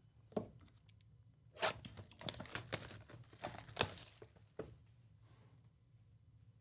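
Clear plastic shrink wrap being torn and crinkled off a 2023 Panini Elite Extra Edition Baseball hobby box: a run of crackling rips lasting about two and a half seconds, with one last crinkle shortly after. A single light knock comes just before, as the box is handled.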